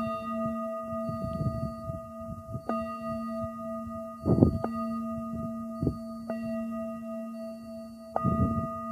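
A handheld singing bowl struck a few times, each strike renewing a long ring with several steady overtones. Gusts of wind buffet the microphone a few times over the ringing.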